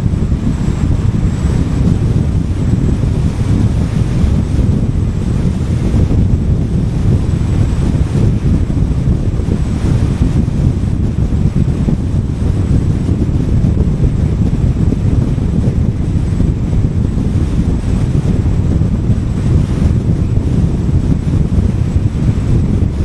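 Steady low rumble of a car driving at speed on a highway: wind noise on the microphone over road noise.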